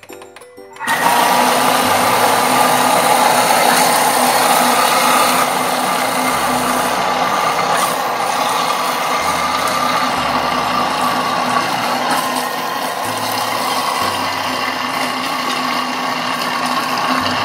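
Bimby TM5 (Thermomix) kitchen machine running at speed 5, its blade mixing choux pastry dough as eggs are added. A steady motor whirr with a held whine starts about a second in and runs on evenly.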